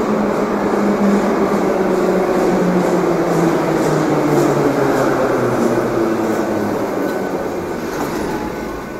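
Moscow metro 81-717-type train pulling into the station and slowing, its motor and gear whine falling steadily in pitch over the rumble of the wheels, getting quieter toward the end as it comes to a stop.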